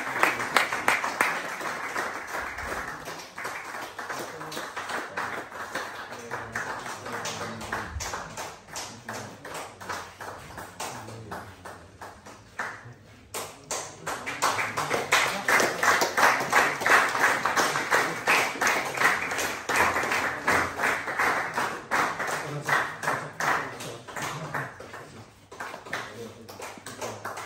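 A small group of people clapping. One round of applause fades over the first few seconds, and a second round starts about halfway through and dies down near the end.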